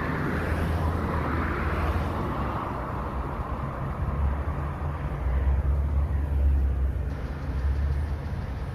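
A car driving: steady low rumble of engine and road noise, with a rushing sound that swells and fades over the first couple of seconds.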